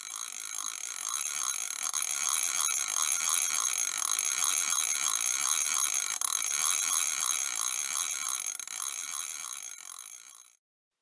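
A steady mechanical whirr with a fast, even clatter running through it. It fades in at the start and fades out shortly before the end.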